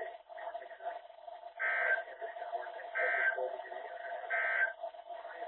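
NOAA Weather Radio's SAME end-of-message code, heard from a radio speaker: three short, harsh digital data bursts about 1.3 s apart over a steady hum. The bursts mark the end of the broadcast warning.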